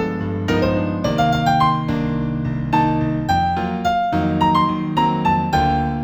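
New-age piano music in B minor: a melody of single struck notes climbing in short runs over held low notes.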